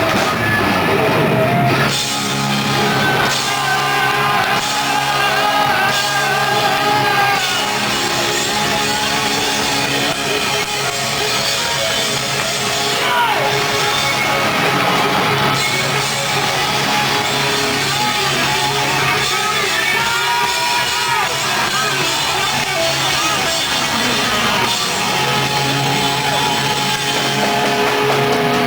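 Rock band playing loudly, with electric guitar, bass and drums under singing.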